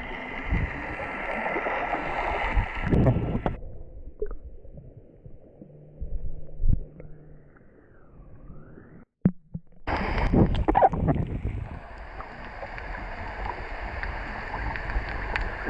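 Muffled sea-water noise with gurgling bubbles heard underwater. It falls to a low murmur about four seconds in, then cuts back in louder about ten seconds in.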